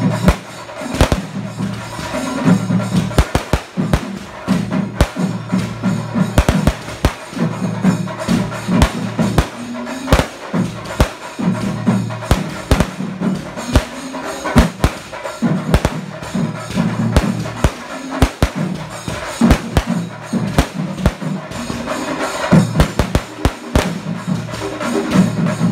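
Aerial fireworks bursting overhead in a rapid, irregular barrage of sharp bangs, with music playing loudly beneath them.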